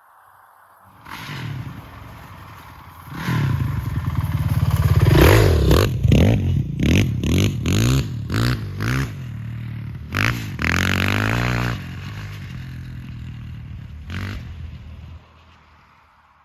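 Honda TRX450 quad's single-cylinder four-stroke engine running and being revved: it comes up about a second in, takes a quick series of throttle blips, then one longer rev, and settles before cutting off near the end.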